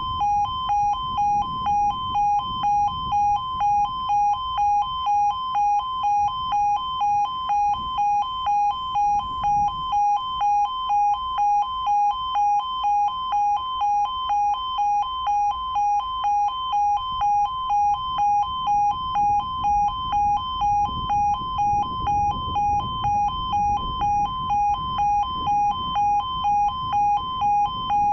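Railway level crossing audible warning: a two-tone electronic alarm beeping in an even, quick pulse that keeps on sounding, warning of a train approaching the crossing.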